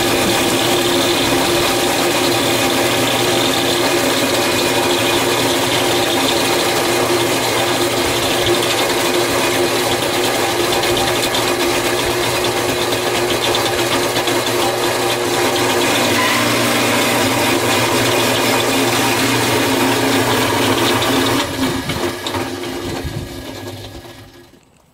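Red Lion cement mixer running, its turning drum rattling with soil mix and tumbling rocks as the load pours out. The steady motor hum and rattle die away near the end.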